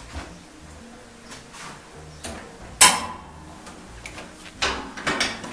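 Stainless steel radial honey extractor being loaded and shut: light knocks of frames and fittings, then a sharp clack about three seconds in as the lid is closed, followed by a few lighter clicks.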